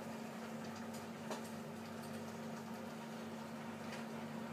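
A few faint clicks of a spoon stirring a pot on the stove, over a steady low hum.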